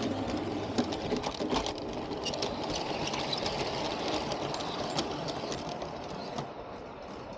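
Bachmann G scale model diesel train running on garden railway track, its electric motor whirring steadily and its wheels clicking irregularly over the rail joints, heard from close on board the train. The running gets a little quieter near the end.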